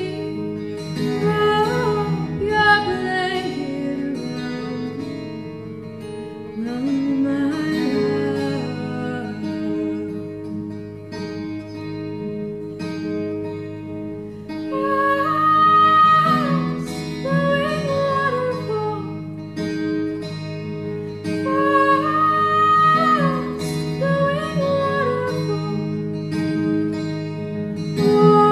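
Twelve-string acoustic guitar ringing under a woman's singing, her voice holding long notes and gliding between pitches.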